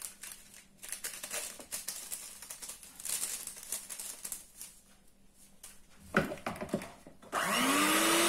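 Light rustling and handling as a paper sachet of baking powder is emptied into a mixing bowl, then an electric hand mixer switches on about seven seconds in, its motor whine rising as it spins up in the cake batter. The mixer is the loudest sound.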